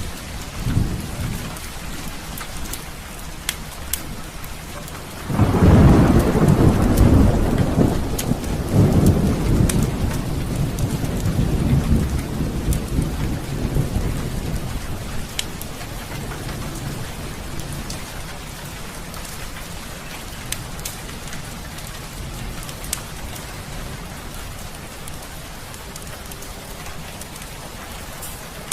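Heavy rain falling steadily. A loud thunderclap breaks about five seconds in and rolls on as a deep rumble for roughly ten seconds before fading. Sharp crackles of a fireplace fire are scattered throughout.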